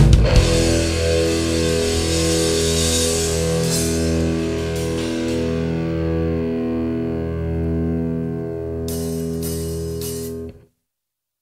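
A rock band's song ending: a last chord on electric guitar held and ringing, with a cymbal hiss fading away. The sound cuts off sharply into silence near the end.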